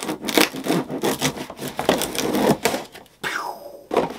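Packing tape on a cardboard box being slit along its seam and the flaps ripped open: a dense run of scraping, crackling tears for about three seconds that dies away after about three seconds.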